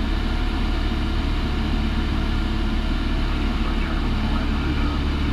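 Single-engine light aircraft's piston engine and propeller in flight, a steady unchanging drone heard from inside the cockpit.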